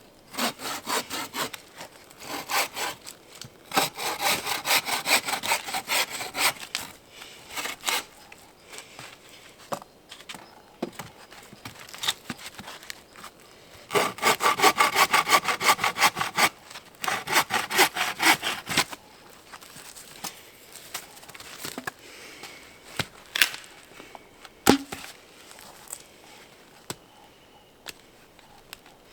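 Hand saw cutting through wood in four bouts of quick back-and-forth strokes with pauses between, the last two bouts about halfway through. Only a few separate sharp knocks follow near the end.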